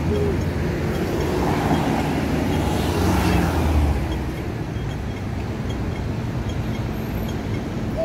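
Road traffic at a signalled crossing: engines rumbling, with a vehicle passing close that swells to a peak about three to four seconds in and then fades. Faint regular ticks sound throughout.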